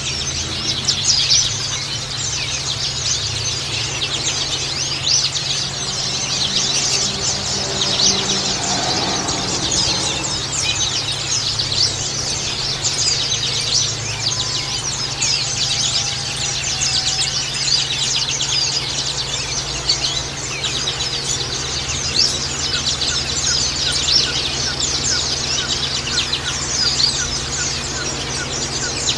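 Zosterops white-eyes (pleci) singing in a dense, unbroken run of rapid high chirps and trills, several voices overlapping. A steady low hum sits underneath.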